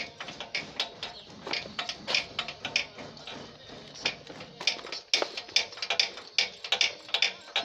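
Irregular sharp clicks and taps, several a second, of hand tools working on metal engine parts.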